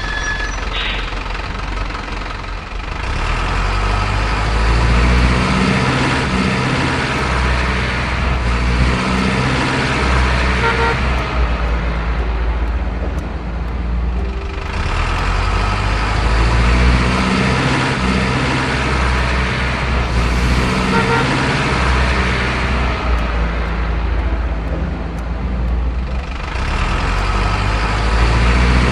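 Heavy truck engine sound running steadily, easing off and building up again a few times, with a short horn toot right at the start.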